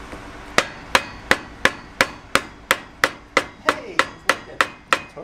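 Hammer blows tapping a new chrome exhaust tip onto a VW Beetle's tailpipe, struck through a thick pamphlet used as a pad in place of a rubber mallet. The taps start about half a second in and come at an even pace of about three a second.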